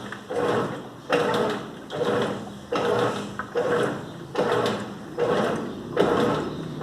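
Colormaq LCA11 top-loading washing machine agitating a heavy load of comforters in water, the agitator swinging back and forth with a surge about every 0.8 seconds as it pulls the bedding down.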